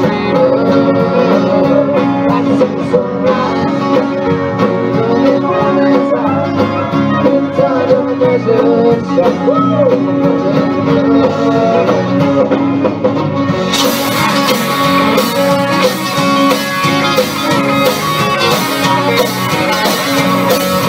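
Live country band playing an instrumental passage: fiddle over acoustic and electric guitars, bass and drums. About fourteen seconds in, the sound turns brighter and fuller, with sharp drum strikes.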